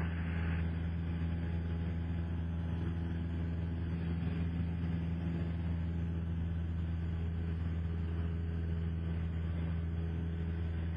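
Cessna 172SP Skyhawk's four-cylinder Lycoming engine and propeller droning steadily in the climb, heard from inside the cabin.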